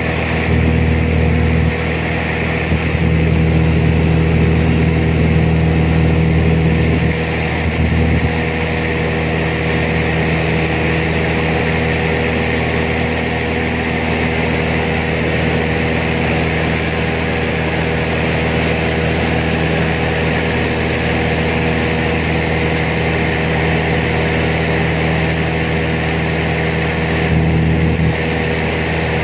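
Small propeller plane's engine droning steadily, heard from inside the cabin. The low rumble swells briefly a few times in the first eight seconds and once more near the end.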